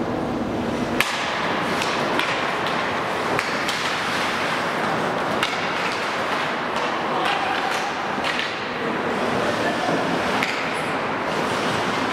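Ice hockey play: skate blades scraping the ice and hockey sticks clacking on the puck and on each other, with a sharp clack about a second in and scattered smaller clicks after it.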